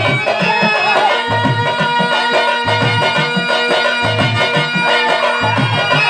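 Live accompaniment for a Telugu stage drama: tabla strokes in a rhythm under sustained harmonium notes, with a woman singing over them.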